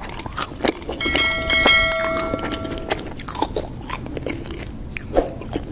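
Subscribe-button end-screen sound effect: a bell-like chime rings for about two seconds starting about a second in, among a run of irregular short clicks.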